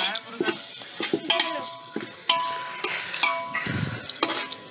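Metal ladle stirring chicken curry in a large aluminium pot: repeated scrapes and knocks of the ladle against the pot, several knocks followed by a brief metallic ring from the pot.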